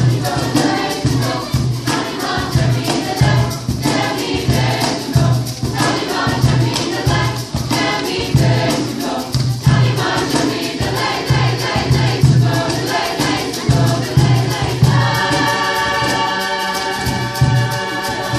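Mixed youth choir singing over a steady low pulse about twice a second. Near the end the voices settle into a long held chord.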